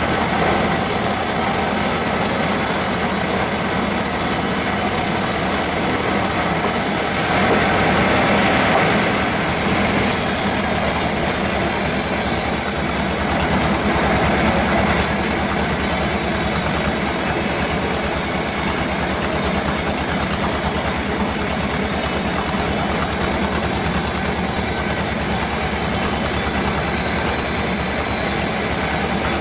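Band sawmill running steadily, its band blade cutting lengthwise through a teak log with a loud, continuous machine noise.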